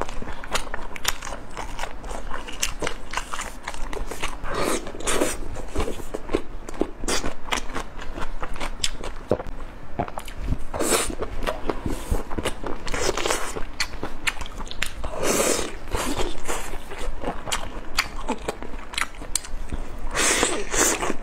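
Close-miked eating of sauced spicy skewers: biting and chewing with wet smacking clicks throughout, and a few louder bursts of about half a second to a second.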